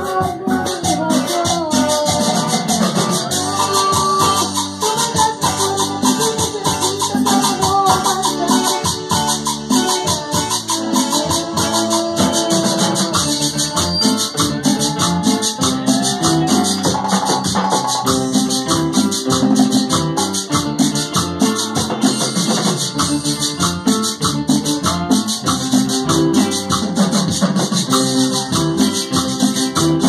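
Live cumbia band playing. A steady scraped rhythm on a metal güira runs under a melody on electronic keyboard, with drums and a low bass line.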